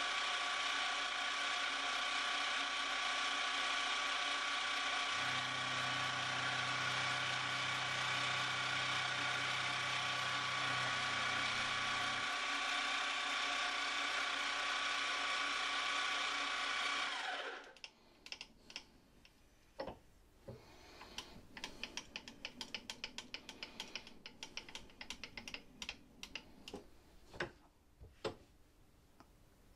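Milling machine running with a steady whine made of several tones, with a lower hum joining for about seven seconds. About 17 seconds in it stops, its pitch sliding down, and light scattered clicks and taps of hand work at the vise and workpiece follow.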